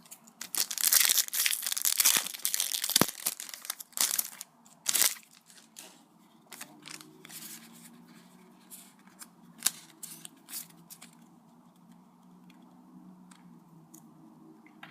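A foil Pokémon booster pack wrapper being torn open and crinkled, loud and crackly for the first five seconds or so. After that come scattered light clicks and rustles as the cards are handled.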